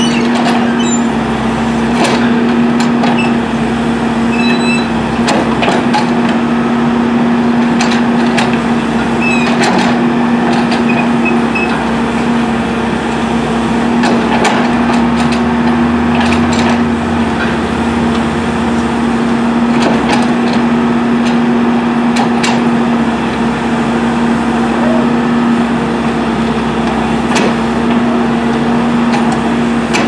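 John Deere backhoe loader's diesel engine running steadily at constant throttle, with occasional sharp knocks as the boom-mounted sheepsfoot compaction wheel works the dirt.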